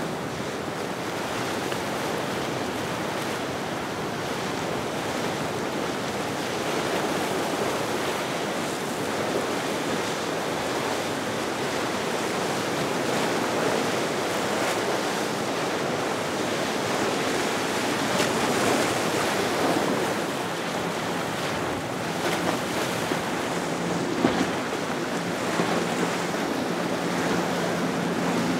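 Steady rush of wind and breaking surf, with wind buffeting the microphone. Faint engine drone comes in under it in the last few seconds.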